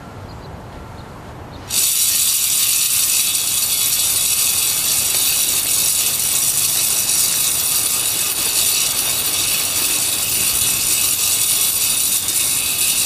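Automatic bait feeder dispensing a feeding: its motor-driven spinner casts bait pellets with a loud, steady whirring rattle. It starts suddenly about two seconds in.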